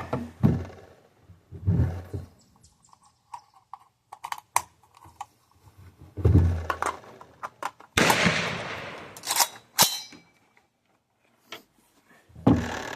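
A 3D-printed firearm being worked and test-fired: light metallic clicks from the action, and several loud sharp reports with a short trailing echo, the loudest about eight seconds in.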